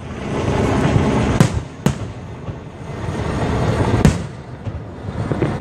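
Aerial fireworks shells bursting overhead, close by. Three sharp bangs stand out, at about a second and a half, just under two seconds and about four seconds in, over a continuous rumble from the display.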